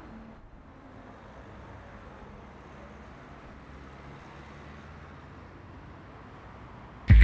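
Steady, quiet street ambience: a low even hum of distant road traffic with no distinct events. A loud rhythmic burst cuts in right at the end.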